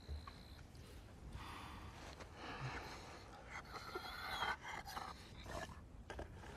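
Injured wolf breathing hard through its open mouth, in uneven, breathy pants.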